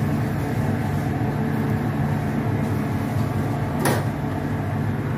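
Steady low hum and rumble of a kitchen stove under a pot of water at the boil. One sharp knock comes about four seconds in, as spinach is tipped from a bowl into the metal pot.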